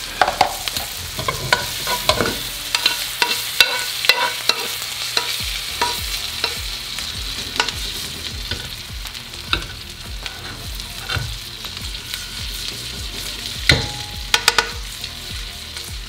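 Periodical cicada nymphs sizzling as they fry in butter and garlic in a non-stick frying pan, with a metal spoon tapping and scraping against the pan as they are stirred. The taps come thick in the first few seconds and again in a quick flurry near the end.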